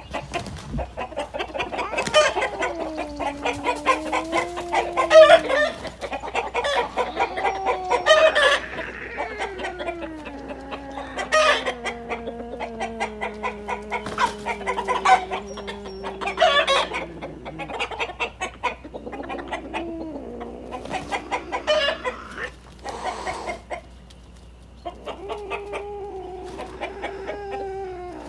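Rooster clucking agitatedly in rapid runs, with louder squawks every few seconds. Under it runs a long, low wavering moan that slides slowly down in pitch, breaks off near the two-thirds mark and returns near the end.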